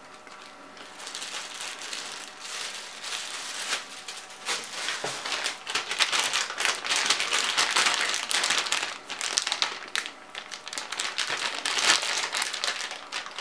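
Clear plastic packaging crinkling and rustling as bagged cables are handled and unwrapped, a dense crackle that grows louder and busier about four seconds in.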